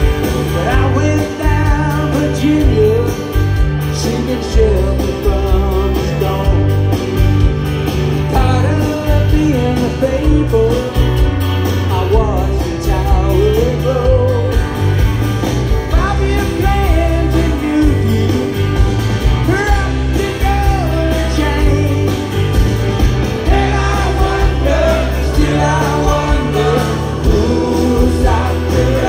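Live rock band playing through large open-air PA speakers, heard from within the crowd: a male lead vocal over electric guitars, drums and a steady bass line.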